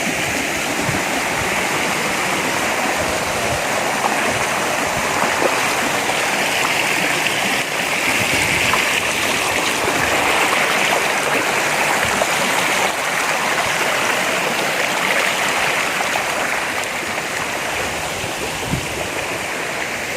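Rushing water of a small waterfall and stream over rocks, a steady loud rush.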